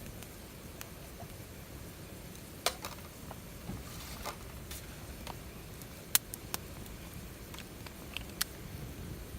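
A few scattered, sharp clicks and pops over a faint low background hum, the loudest about six seconds in.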